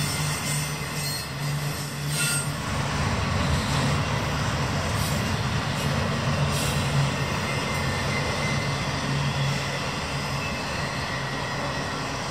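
Double-stack intermodal container cars of a long freight train rolling past on the rails, a steady rumble of steel wheels on track.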